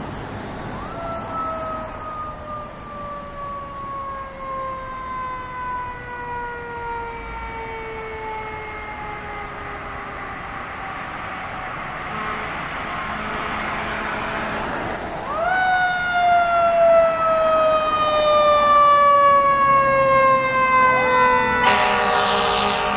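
Fire engine sirens wailing as the engines approach. There are two long wails, each rising quickly and then falling slowly over several seconds, and the sound grows louder in the second half. Near the end come a short rising whoop and a loud horn blast.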